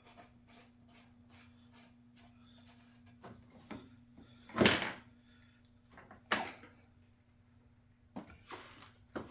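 Hand ratchet clicking slowly, about two or three clicks a second, while the oil filter is fitted back in place. Then two louder clunks of tools or parts being handled.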